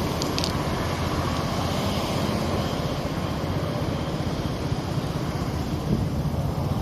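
Steady, rumbling vehicle noise with a strong low rumble.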